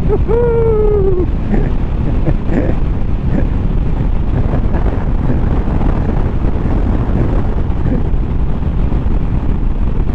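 Honda VFR800F V4 engine with an SC Project exhaust at high revs, its note falling in pitch over the first second or so. Wind noise rushes over the microphone at road speed after that.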